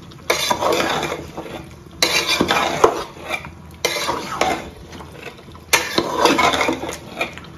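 Wooden spatula stirring and scraping chicken, beans and tomatoes frying in an aluminium pot. The stirring comes in about four long strokes with a few sharp knocks against the pot.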